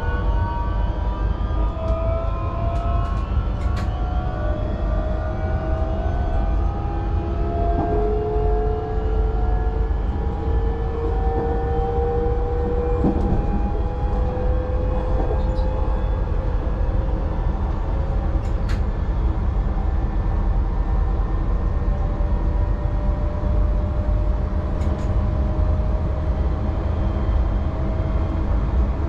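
Class 442 (Bombardier Talent 2) electric multiple unit heard from the driver's cab while under way: a steady rumble of wheels on the track, with several whines from the electric traction drive slowly rising in pitch as the train gains speed. A few short sharp clicks come through.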